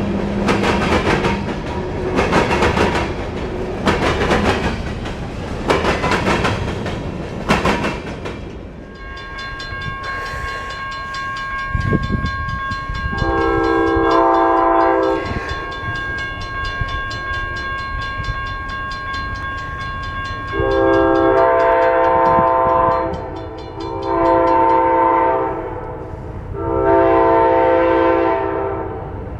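Train wheels clacking over rail joints about once a second for the first several seconds. Then a steady ringing starts, and a locomotive horn sounds one long blast. Near the end the horn gives a series of long and short blasts.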